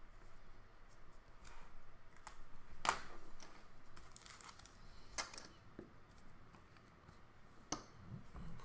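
Hands handling trading cards and plastic card sleeves on a tabletop: soft rustling with several sharp clicks and taps, the loudest about three seconds in.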